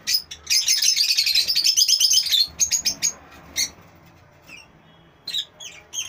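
Lovebirds chirping: a fast, dense chatter of high chirps for the first couple of seconds, then scattered single chirps, with a few more near the end.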